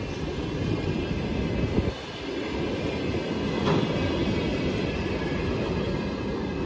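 Freight train of rail tank cars rolling past at close range: a steady rumble and clatter of wheels on the rails, with a sharp knock about two seconds in.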